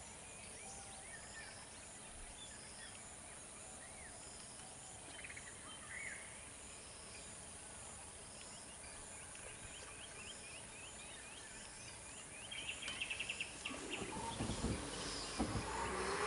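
Wild birds chirping and calling over an outdoor hiss, with a quick run of repeated notes about two-thirds through. Over the last few seconds louder irregular crackles and low thumps take over.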